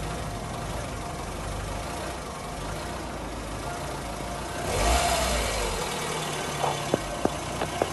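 Toyota Corolla 2E carburetted inline-four engine running unevenly. About five seconds in it revs briefly, then its low rumble thins and a few sharp pops follow near the end as it falters: the hard-starting, stalling engine is about to die again.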